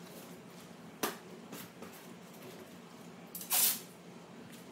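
Cardboard being handled: a light tap about a second in, then a short rustling scrape about three and a half seconds in.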